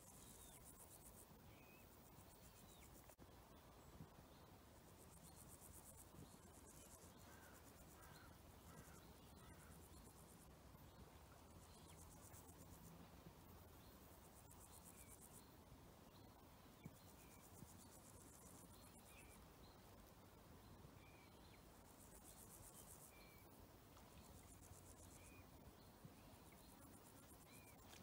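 Faint summer marsh ambience: insects chirring high in repeated bursts of a second or two, with scattered small bird chirps and a soft background hiss.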